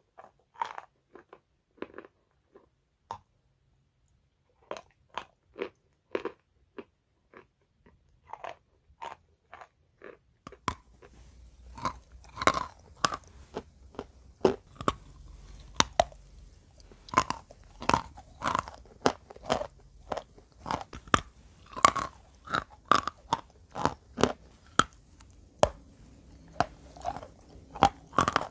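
Wet chalk being bitten and chewed close to the microphone, giving sharp crunches. They are sparse and fairly quiet at first; from about a third of the way in they come faster and louder, in steady crunching.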